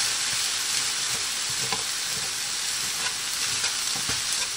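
Fried rice sizzling in a hot pan with a steady hiss, while a spatula stirs and breaks up the rice, giving scattered light scrapes and clicks.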